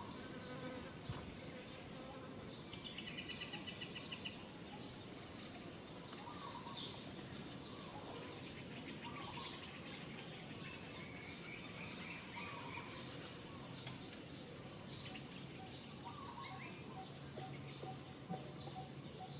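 Outdoor insect and bird chirping: short high chirps repeat about once a second, with a rapid trill about three seconds in, over a steady background hiss.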